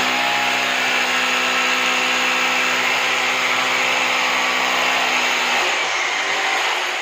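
Electric drill running at a steady speed, then winding down and dying away near the end.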